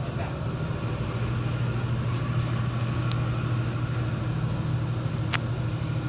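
Steady low mechanical hum filling a large room, with a couple of faint clicks about three seconds in and again near the end.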